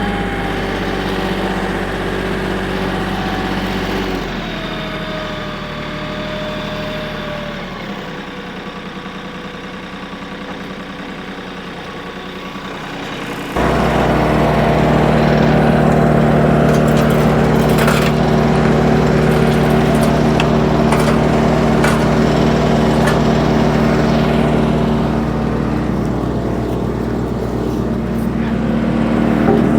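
Tractor engine running, its pitch falling over the first several seconds and then, about halfway through, suddenly becoming louder and steady.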